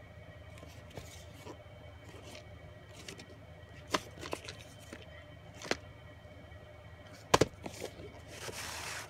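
VHS tapes and their cases handled by hand: a few sharp clicks and knocks, the loudest near the end, then a brief sliding rustle.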